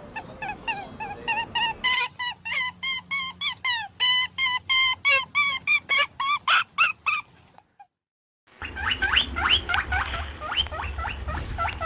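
Rabbit squeaking: a run of short, high, pitched squeaks, about three or four a second. About two thirds of the way through it cuts off, and after a second of silence a second run of quicker, downward-sliding squeaks starts over a low rumble.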